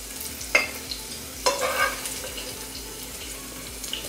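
Metal utensil scraping and clinking against a saucepan as cooked diced potatoes and bacon are served onto a plate, with two sharp clinks about half a second and a second and a half in.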